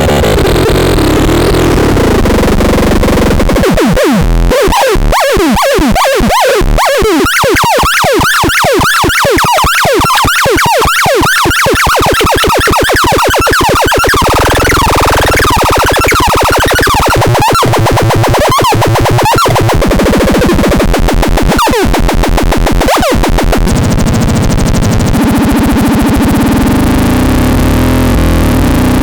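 Harsh, glitchy electronic synthesizer noise from the MEXADEX 4. A few seconds in, it breaks into fast, repeating pitch sweeps that gradually slow and spread out. It settles into a steadier drone near the end, with a couple of sharp clicks just before.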